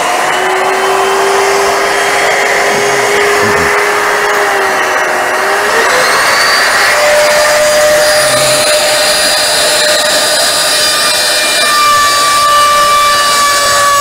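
Electric wood router running upside down with its dust extraction attached: a loud, steady motor whine over a rushing air noise. The whine climbs in pitch about five seconds in.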